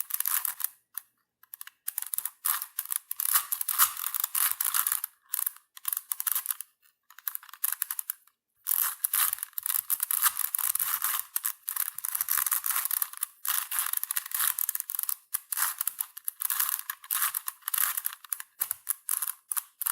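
Rubik's cube being turned by hand, its layers clicking and clacking in quick runs of turns with short pauses between them.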